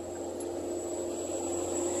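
Construction vehicle's motor running with a steady whine and a thin high tone, growing gradually louder.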